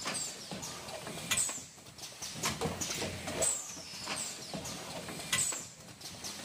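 Rotary-turntable detergent cup packaging machine running, with clicking and knocking and a recurring short high squeak that falls in pitch every one to two seconds.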